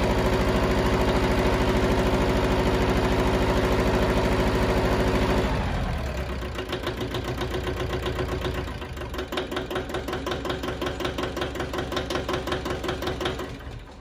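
Yanmar 155D tractor's diesel engine running steadily, then dropping to a slower, uneven idle with distinct firing pulses about five and a half seconds in. The sound cuts off near the end.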